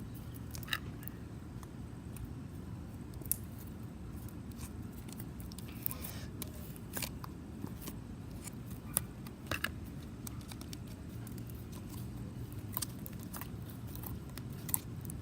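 Blue clicky slime being squeezed and stretched by hand, giving irregular sharp clicks and pops every second or two over a steady low background hum.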